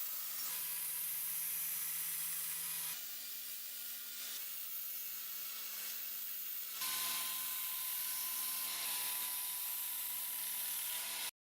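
A power tool running steadily with an abrasive hiss as it works the rusty steel of a cleaver blade, in several short cut-together stretches whose motor pitch shifts at each cut. It cuts off abruptly near the end.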